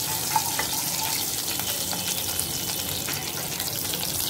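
Cumin, mustard seeds and shahi jeera sizzling and crackling in hot oil in a pan: a tadka tempering. A spatula stirs them, clicking against the pan a couple of times in the first second.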